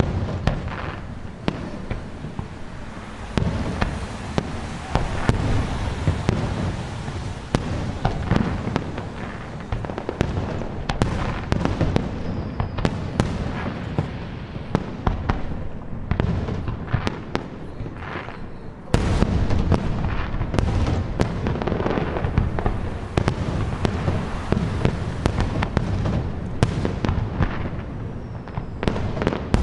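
Fireworks display: a continuous barrage of shell bursts and crackling, turning denser and louder about nineteen seconds in.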